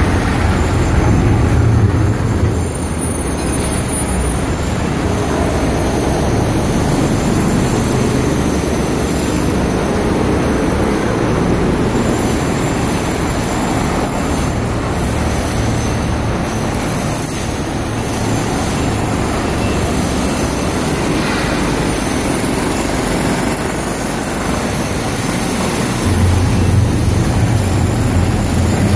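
Diesel engines of heavy construction machinery, a wheel loader among them, running steadily with a loud low rumble. The rumble is stronger in the first two seconds and again over the last few seconds.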